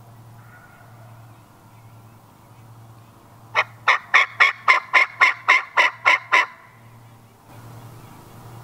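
Wild turkey yelping: a loud, even series of about a dozen yelps at roughly four a second, lasting about three seconds, starting midway through.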